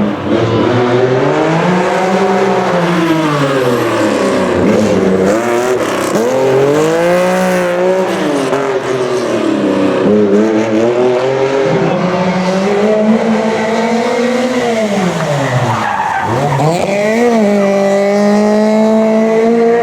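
Historic rally car's engine revving up and down over and over, with tyres squealing, during burnouts and sideways drifts. The revs swing every two to three seconds, drop sharply about three-quarters of the way through, then climb and hold high near the end.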